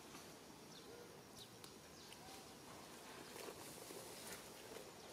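Near silence: faint outdoor ambience with a few faint, short chirps scattered through.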